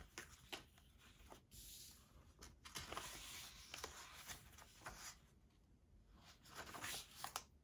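Faint rustling and a few light taps of paper and card as a tag is handled and journal pages are turned by hand.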